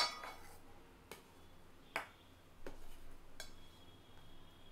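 Steel ladle clinking against the side of a stainless steel pot while stirring sevai in milk. There is a sharp clink right at the start, then four lighter clinks about a second apart, one leaving a faint metallic ring.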